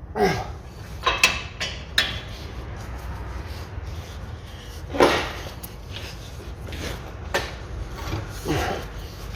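Hand tools knocking and scraping on the car's front suspension while the ball-joint nut is tightened: about seven irregular clanks, the loudest about five seconds in.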